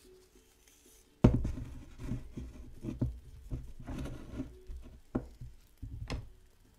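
Objects being handled close to the microphone: a sudden loud knock about a second in, then irregular knocking and rustling, and two sharp clicks near the end.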